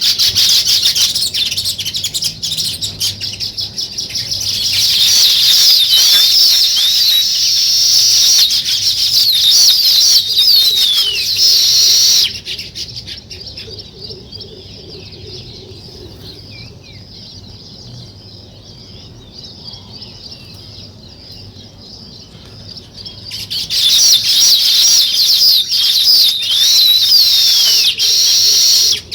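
Many small birds chirping at once, a dense run of short overlapping chirps. It drops abruptly to a much quieter stretch about twelve seconds in and jumps back to full volume about twenty-three seconds in.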